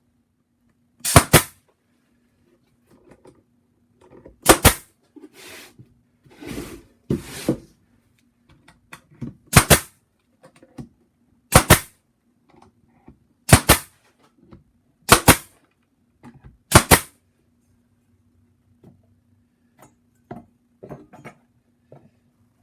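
Pneumatic nail gun firing into barnwood: seven sharp shots a second or two apart, with a few softer knocks between them.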